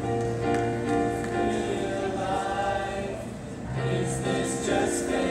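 A small vocal group singing long, held chords in harmony, with a new chord coming in about two-thirds of the way through.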